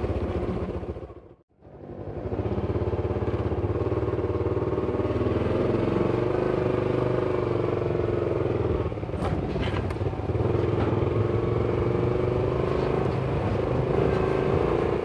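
Motorcycle engine running steadily while being ridden at low speed. The sound cuts out briefly about a second and a half in, and a few sharp clatters come about nine to ten seconds in.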